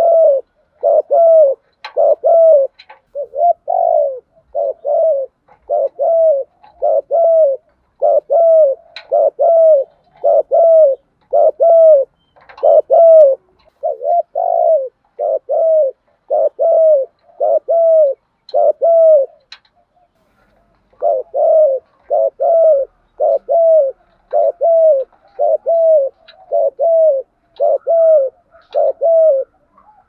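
Spotted dove cooing loud and clear: a long, even run of short, arched coos, a little more than one a second, broken by a pause of about a second two-thirds of the way through.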